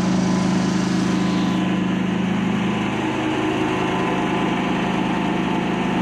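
Diesel generator running steadily at constant speed, a fairly noisy, even drone heard up close.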